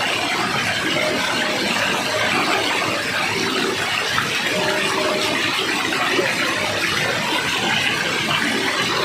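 Steady rush of falling water, as from a waterfall, running evenly without a break.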